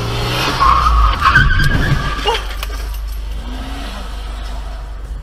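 Car tyres skidding and squealing under hard braking for about a second and a half, with a heavy thud about a second in and sharp crunching knocks just after: a collision between two cars. A steady low vehicle rumble follows.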